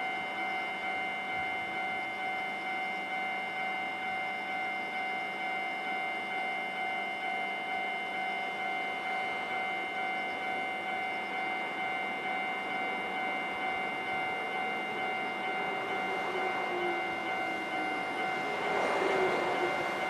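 Japanese level-crossing warning bell ringing steadily, its fixed tones pulsing in an even repeating pattern. In the last few seconds the running noise of an approaching train swells up under it.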